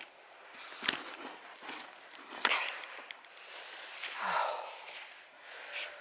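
Handling noise as a walker climbs over a field gate: sharp knocks, about one and two and a half seconds in, and clothing rustling against the camera microphone, with a short breathy grunt a little after four seconds in.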